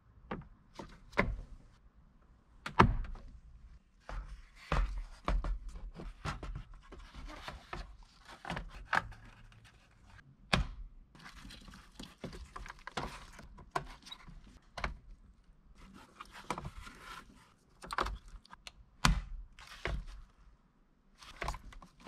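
Plastic clicks, knocks and rustling from a 1988 Nissan D21's instrument cluster and its wiring-harness connectors being handled and worked loose by a gloved hand. The knocks come irregularly, the loudest about three seconds in.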